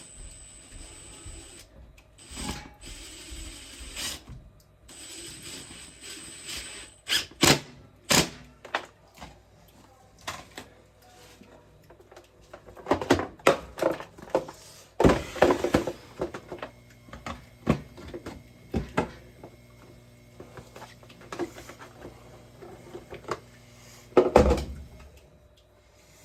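Knocks and clunks of parts and hand tools being handled during a plumbing installation, with two stretches of hiss in the first several seconds and a low hum in the second half.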